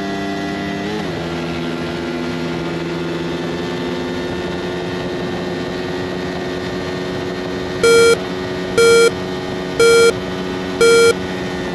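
Small Suzuki GSX-R125 single-cylinder motorcycle engines idling steadily together. From about 8 s in, four loud short beeps sound one second apart as a start countdown.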